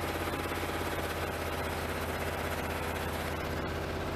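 1988 Pontiac Trans Am GTA's V8 running at a steady idle while warming up from a cold start, a rapid, even pulsing drone that sounds like a Cessna. The engine runs poorly, which the owner suspects is an air or fuel problem rather than spark.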